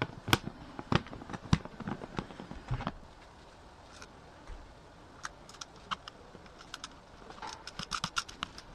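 Sharp plastic clicks and knocks as a quartz wall-clock movement is fitted back onto the plastic dial, then a quick run of small clicks near the end as the mounting nut is worked onto the hand shaft.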